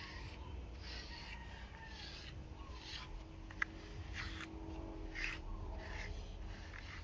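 A handheld grooming brush rasping through a chihuahua's short coat in repeated strokes, about one a second, with a single sharp click about halfway through.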